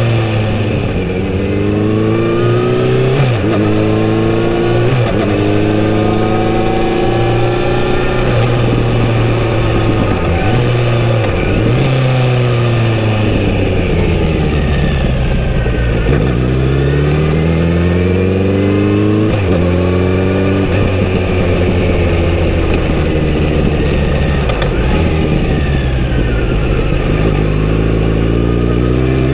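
Kawasaki Z900RS inline-four on its stock exhaust, under way: it accelerates through several quick upshifts in the first few seconds, its note falls as it slows and downshifts about halfway, then it climbs through the gears again, rising once more near the end.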